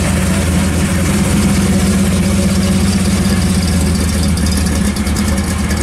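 1955 Chevrolet Bel Air hot rod's side-exit exhaust running at a steady low, near-idle speed as the car rolls slowly past, with no revving.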